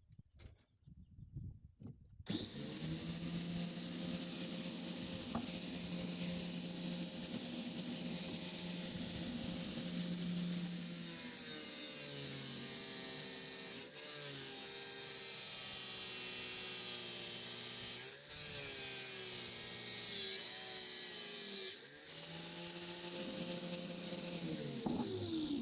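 Electric angle grinder switched on and spinning up to a steady high whine. From about ten seconds in its pitch sags and wavers several times under load, as when it is cutting, then it runs free again. Near the end it is switched off and winds down.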